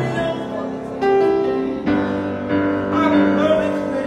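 Piano played in slow, held chords, with a man's voice singing along from about three seconds in.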